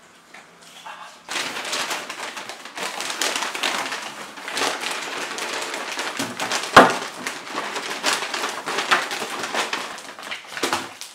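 White plastic carrier bag rustling and crinkling as hands rummage through it. It starts about a second in, with one sharp crackle about halfway through.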